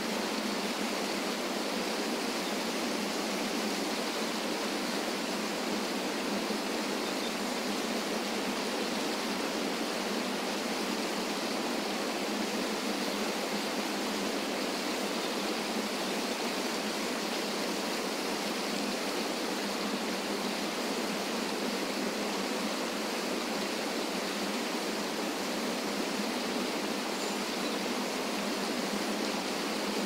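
Small waterfall cascading over rocks into a river pool: a steady, even rush of water.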